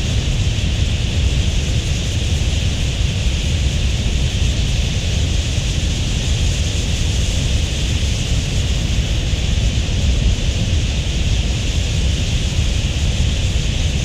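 A huge flock of wild budgerigars in flight: a steady low rush of thousands of wingbeats, with the flock's massed high-pitched chatter over it as an even hiss.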